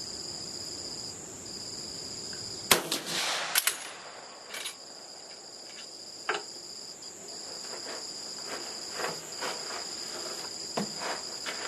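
A single rifle shot from a Steyr M1888/95 straight-pull rifle firing a cast-bullet 8x50R load, about three seconds in, ringing out for about a second. A few sharp clicks follow, then lighter clicks and knocks near the end. Crickets chirp steadily throughout.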